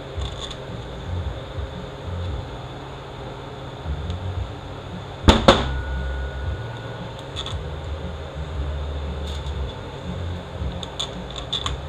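Small steel bolts clicking and clinking as they are picked up off a metal workbench and set into a 68RFE transmission valve body, with two sharp clinks close together about five seconds in. A steady low rumble runs underneath.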